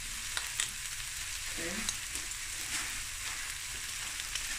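Slices of spiced beef and chicken pastrami sizzling steadily in oil in a stainless steel frying pan, with scattered small pops and spits.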